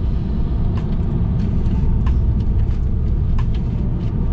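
Steady low rumble of road and engine noise inside a moving car's cabin, with a few light clicks scattered through it.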